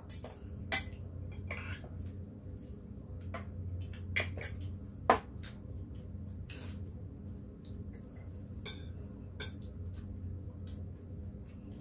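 Metal chopsticks and spoons clicking and clinking against plates, bowls and a pot while two people eat, in scattered taps with a few sharper clinks about four and five seconds in. A steady low hum runs underneath.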